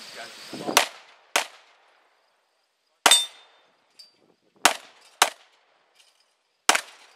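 Pistol shots: six sharp reports, in two pairs about half a second apart plus two single shots, with pauses of one to two seconds between the groups.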